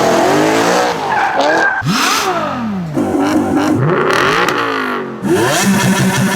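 BMW car engines revving hard, the pitch climbing and dropping again several times in quick succession.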